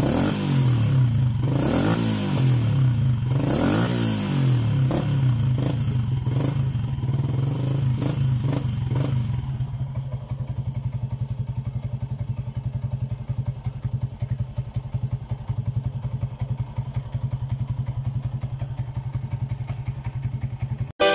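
Yamaha Y15ZR's 150 cc single-cylinder four-stroke engine breathing through a YYPang 28 mm 'cutting standard' exhaust. It is blipped into several quick revs that rise and fall, then about ten seconds in it drops to a steady, fast-pulsing idle.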